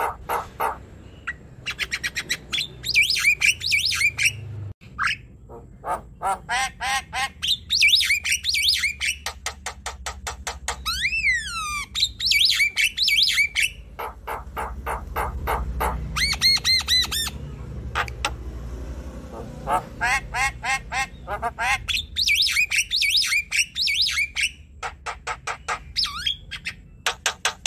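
Javan myna singing a varied, chattering song: fast runs of clicks and short notes alternate with high warbling phrases and whistles that rise and fall, in repeated bursts with short pauses between them.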